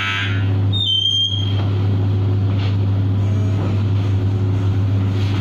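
Steady low hum of a commercial bakery deck oven and its extractor hood. A buzzing tone cuts off just after the start, and a short, high rising squeak comes about a second in as the top oven door is opened.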